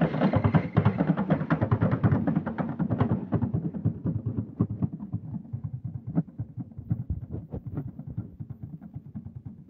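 Drums beating in a quick rhythm, fading steadily, over the low running of a slow-moving pickup truck's engine.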